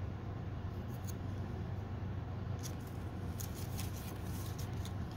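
Steady low hum under light rustling and crinkling of construction paper being handled and pressed down onto a card, the crinkles coming mostly in the second half.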